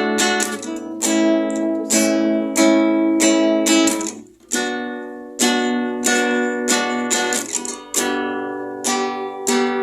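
Acoustic guitar strumming chords, a new strum about once a second with each chord ringing on, and a brief gap about four seconds in.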